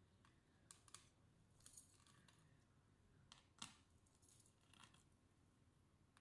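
Faint, scattered clicks and light metallic taps of a screwdriver working on the small screws and metal parts of an opened Dell Inspiron 3501 laptop, about half a dozen in all, the loudest about three and a half seconds in.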